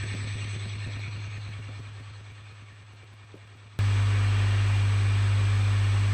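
Swimming-pool filter pump's electric motor, driven by a frequency regulator, humming steadily. The hum is fainter and fading over the first few seconds, then comes back abruptly at full level about four seconds in.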